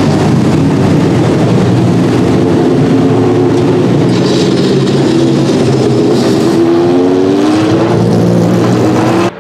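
The Judd GV4 V10 engine of a 2001 Dallara SP1 prototype running loud at low pit-lane speed as the car passes close by. The engine note rises a little near the end as the car pulls away.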